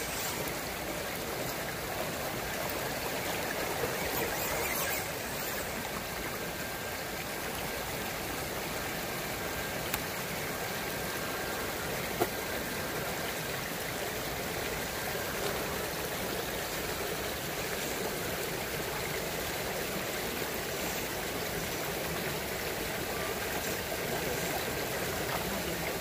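Shallow rocky creek flowing steadily over stones, a continuous rush of water. Two brief sharp knocks come about ten and twelve seconds in.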